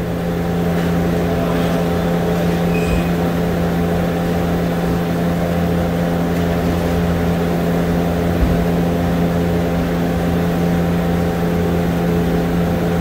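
Steady mechanical drone with several constant tones, unchanging throughout.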